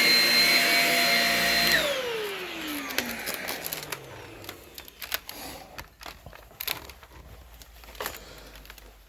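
Shark Rocket self-cleaning brushroll vacuum running with a steady whine, switched off about two seconds in and winding down with a falling pitch. A few scattered clicks and knocks follow.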